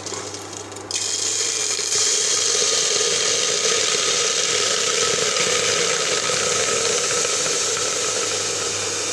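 Washed, chopped vegetables sizzling in a hot pressure cooker: a loud, steady hiss that starts suddenly about a second in.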